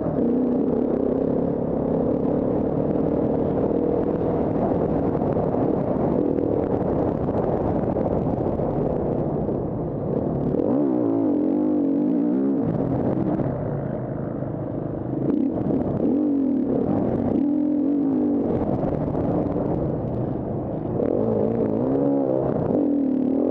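KTM 350 EXC-F Six Days' single-cylinder four-stroke engine running under load off-road, heard close up. Its revs are fairly steady at first, then rise and fall repeatedly from about halfway through as the throttle is worked and the rider shifts.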